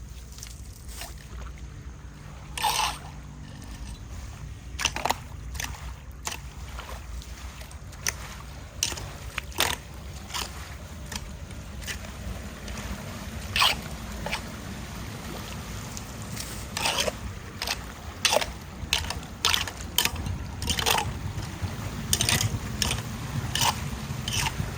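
Floodwater rushing steadily at a street drain, broken by many short splashes and scrapes from clearing debris out of the water.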